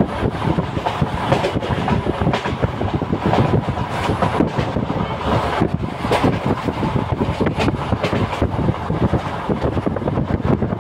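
Moving train heard from inside a carriage: a steady rumble of wheels on the rails with irregular clatter and knocks, and some wind noise.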